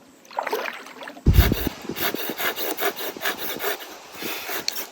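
Handling noise on the camera's microphone: a sudden hard bump about a second in, then fingers rubbing and scraping over the microphone for a few seconds.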